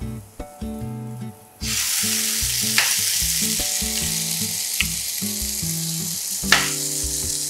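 Burdock cream and shiitake mushrooms sizzling steadily in a nonstick frying pan over lowered heat. The sizzle comes in suddenly about a second and a half in, with a few sharp clicks over it.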